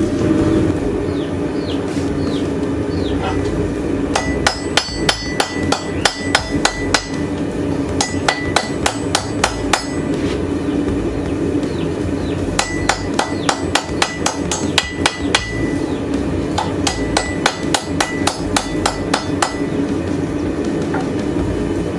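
Hand hammer striking a hot steel railroad spike on an anvil, in four runs of quick, ringing blows at about five a second with short pauses between. A steady low hum runs underneath.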